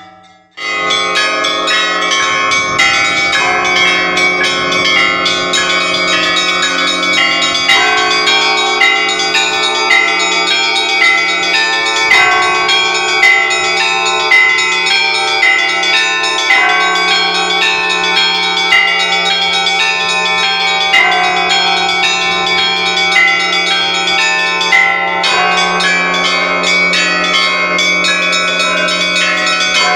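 Orthodox cathedral bells rung together in a continuous peal: smaller bells strike quick, repeating rhythmic patterns over a steady low hum from a larger bell. The ringing starts about half a second in, after a brief pause, and the pattern changes near the end.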